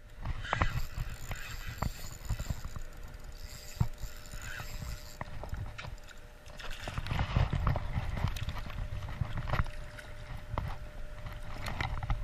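River water lapping and sloshing right at the microphone, with irregular knocks and clicks and louder splashing about seven seconds in, while a fish is reeled to the bank.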